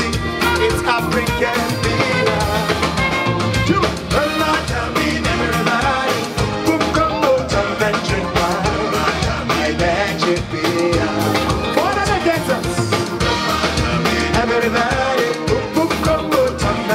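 Background music with a steady drum beat, a song with singing laid over the footage.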